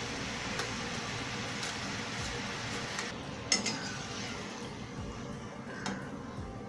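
Murukku frying in hot oil, a steady sizzle that thins about halfway through, with a sharp metal clink of a utensil against the pan a little after the middle and a softer one near the end.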